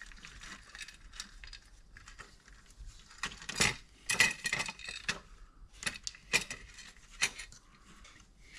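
Irregular metallic clicks and clinks from a small disassembled power supply and its loose parts being handled on a workbench; a few louder knocks have a short ring.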